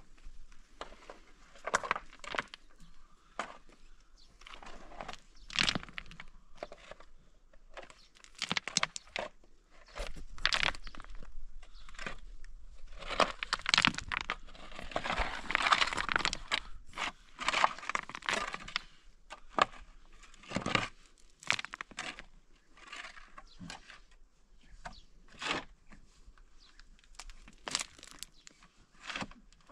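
Shovel blade scraping and biting into dry, gravelly earth in irregular strokes, with a longer run of scraping about halfway through.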